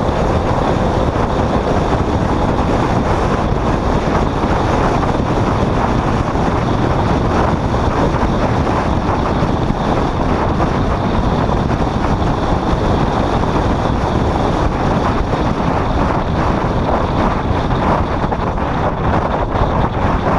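Steady wind and road noise from a vehicle driving along at speed, with wind buffeting the microphone.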